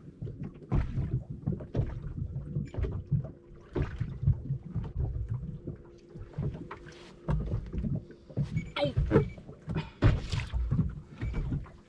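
Irregular knocks, clicks and bumps of gear being handled aboard a small fishing boat while a hooked fish is reeled in, over a low rumble and a faint steady hum.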